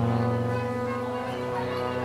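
Background music of slow, sustained low notes.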